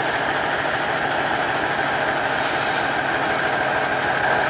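Tatra 815 8x8 trial truck's diesel engine running steadily under load, with a steady high whine over the engine noise.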